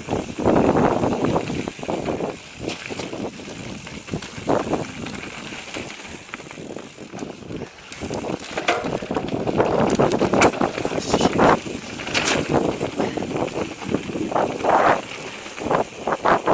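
Mountain bike riding down a rough dirt forest trail: tyres rolling and crunching over dirt, roots and stones, with frequent rattles, clicks and knocks from the bike over bumps. It gets louder and rougher about halfway through and again near the end.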